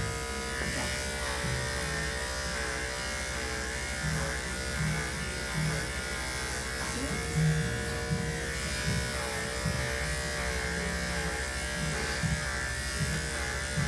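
Electric dog grooming clippers running with a steady buzz.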